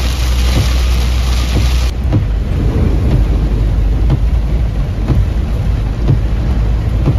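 Heavy rain beating on a moving vehicle's windshield and body, over a steady low rumble of engine and tyres on the flooded road, heard from inside the cabin. About two seconds in, the hiss of the rain drops suddenly and the sound turns duller.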